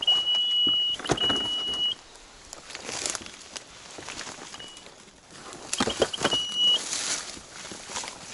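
Beep Mat detector's electronic beeper sounding a steady high-pitched tone for about a second, twice in a row. Later comes a single short beep, then a quick run of beeps that turns into another held tone. Brush rustles and footsteps on the forest floor can be heard between the tones.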